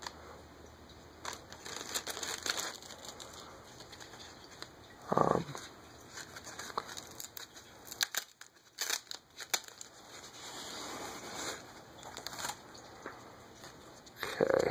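Plastic bag and foam packing wrap crinkling and rustling in the hands as a syringe and medicine vial are unwrapped, with scattered small clicks and one brief muffled sound about five seconds in.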